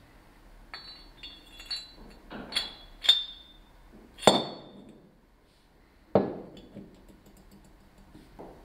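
Small steel parts of a Bilstein car jack clinking as a pin is fitted through the headpiece on the threaded spindle: a series of sharp metallic clinks with a brief ring, the loudest about four seconds in, then a duller knock about six seconds in.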